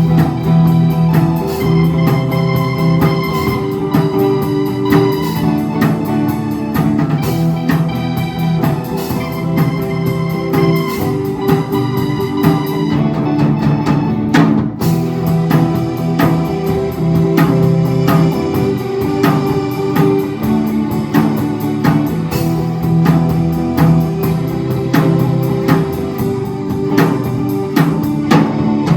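Live school class band playing: held chords over a steady drum beat.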